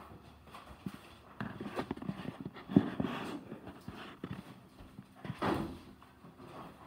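Irregular knocks, thuds and scrapes of a large poster board being fetched and carried past wooden chairs and a table, along with footsteps. The sharpest knock comes a little under three seconds in.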